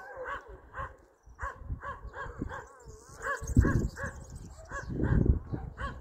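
Several dogs barking repeatedly, a steady run of short barks about two a second: alarm barking at an unfamiliar passer-by.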